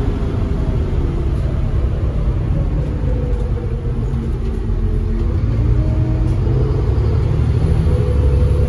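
Interior sound of Dublin Bus AX615, a double-decker, on the move: a steady low rumble from its diesel engine and the road. The engine note rises and falls as the bus changes speed.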